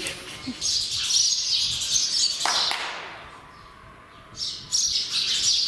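A flock of sparrows chirping busily. The chirping dies away for a second or two about halfway through, then starts up again.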